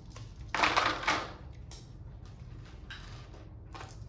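Handling of board-game pieces and packaging: a loud rustle about half a second in, then a few shorter rustles and taps over a low hum.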